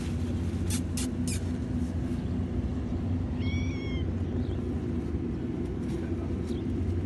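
A cat gives one short, high meow about three and a half seconds in, with a couple of fainter short mews later, over a steady low rumble. Three sharp clicks come about a second in.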